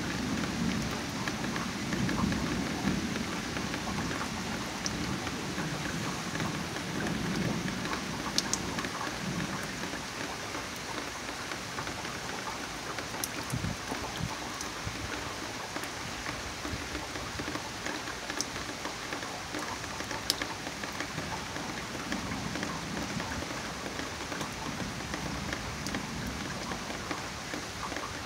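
Rain falling steadily in a thunderstorm, with a low rumble of thunder fading away over the first few seconds. A few sharp ticks of drops hitting something close by.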